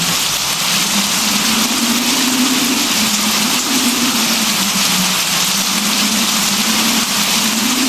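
Steady rain hiss, with a low hum beneath it that wavers slowly up and down in pitch.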